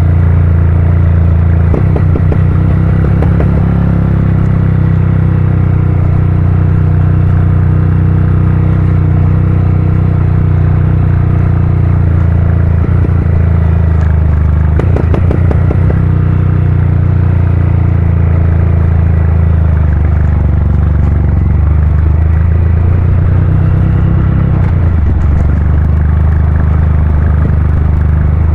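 Honda CG 160 Cargo motorcycle's single-cylinder four-stroke engine rumbling loudly and steadily through a Pro Tork Competition aftermarket exhaust. The note changes briefly a few times, about two seconds in and again near the middle.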